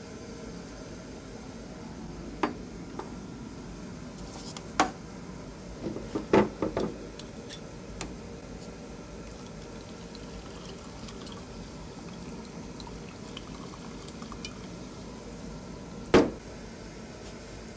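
A bottle and glass clink and knock now and then as a drink is poured, with a cluster of knocks about six seconds in and a sharper one near the end, over a steady background hiss.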